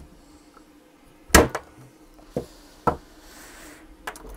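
Knipex lineman's pliers cutting through steel-armored AC cable: one loud sharp crack about a second and a half in as the jaws break through, then a few lighter clicks and knocks of metal.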